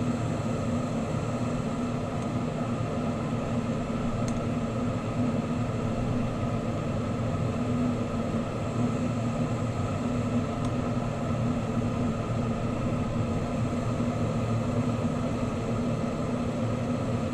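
Steady rushing of a lampworking torch flame, with a low, even hum beneath it.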